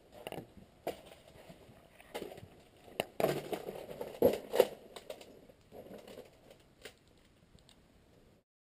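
Irregular crunching, creaking and sharp knocks of people moving over debris on an old barn floor, loudest in the middle, cutting off suddenly near the end.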